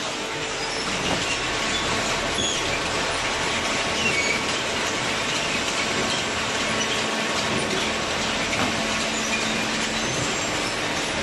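Hydraulic horizontal paper baler running: a steady, dense machine noise with a faint hum and a few brief high squeals.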